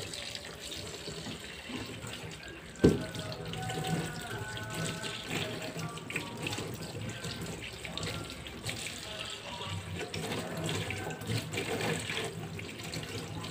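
Tap water running into a stainless steel sink while small mackerel tuna are rinsed and cleaned by hand under the stream. A single sharp knock about three seconds in.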